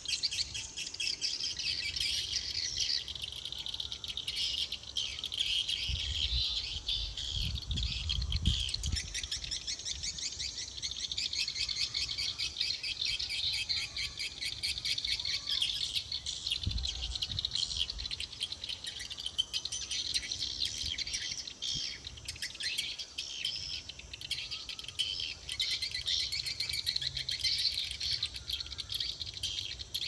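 Swiftlet calls from the bird house's tweeter speakers, tested as a lure sound: a dense, rapid twittering and chirping that continues without a break.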